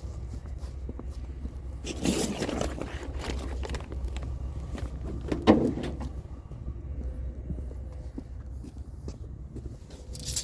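Steady low rumble of a running vehicle, with a scraping clatter about two seconds in and a sharper knock or scrape about five and a half seconds in.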